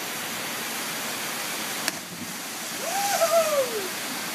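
Steady rushing of a small waterfall into a rock pool, with a sharp click about two seconds in. Near the end a long whooping yell rises, wavers and then slides down in pitch.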